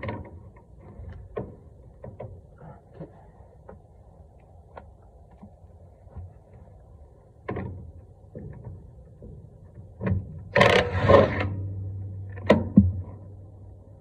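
Metal tools and brake parts being handled: scattered light clinks and knocks, a louder rattling clatter about ten and a half seconds in, and one more sharp knock shortly after.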